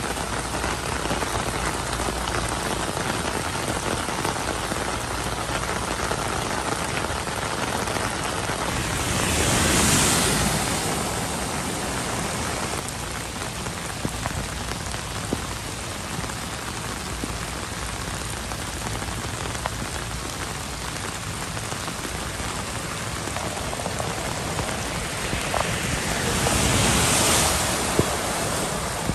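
Heavy rain falling steadily on a flooded road. The hiss of tyres through standing water swells twice, about ten seconds in and again near the end.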